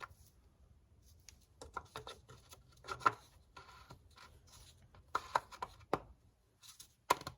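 Hand-handling noise of refitting engine parts, the oil filler cap and dipstick, on a car engine: scattered clicks, taps and small rattles in several short bunches.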